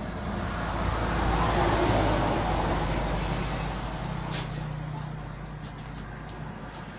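A motor vehicle passing by, its engine and tyre noise swelling to a peak about two seconds in and then fading. A short sharp click sounds about four and a half seconds in.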